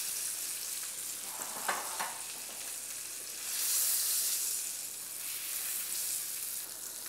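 Pork loin roulade sizzling in butter in a stainless steel frying pan as it is seared brown, with two faint knocks about two seconds in. The sizzle swells for about a second midway.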